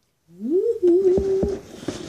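A woman's excited sung "ooh": her voice slides up and then holds a wavering note for about a second, with a few sharp knocks near the end.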